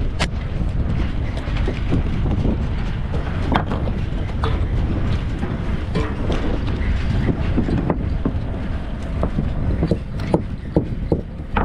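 Fishing boat's engine running steadily under a loud low rumble, with scattered knocks and clatter as the net is hauled aboard by the boom, the clatter growing busier near the end.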